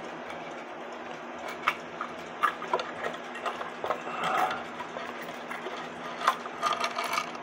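Irregular small clicks and knocks of metal clock parts and tools handled against a wooden cuckoo clock case, with a short rattle about four seconds in and a run of clicks near the end.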